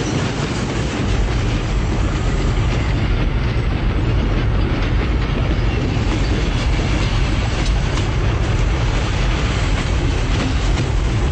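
A railway train running, a steady rumble.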